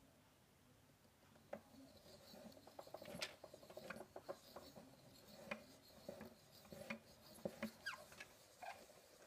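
Hand-cranked wooden automaton mechanism turning: irregular clicks and short squeaks of wooden parts rubbing against each other, starting about a second and a half in.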